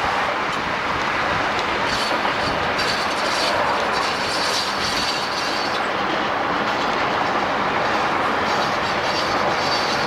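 Freight cars of a Southern Pacific train rolling along the rails: a steady rush of wheels on track with some clickety-clack, heard from a car driving alongside. A faint high squeal comes and goes twice.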